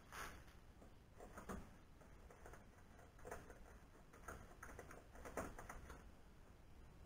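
Faint, scattered light clicks and ticks of a small metal hand tool working a fastener at the corner of an aluminium extrusion CNC frame, coming in small irregular groups.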